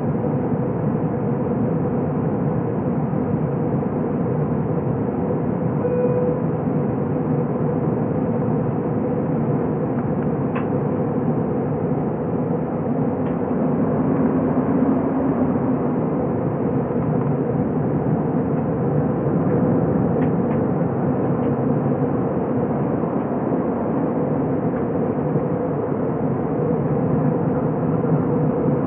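Steady cabin noise of an Airbus A321 in flight, heard from inside the cabin: a constant rush of jet engines and airflow with a low hum, and a few faint clicks.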